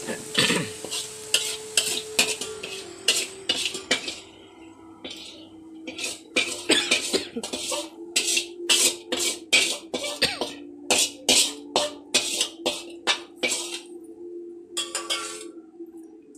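Metal spatula scraping and knocking against a steel kadai and steel pot as the fried onion and chilli tempering is scraped out. Repeated sharp clinks, about one or two a second, run over a faint steady hum.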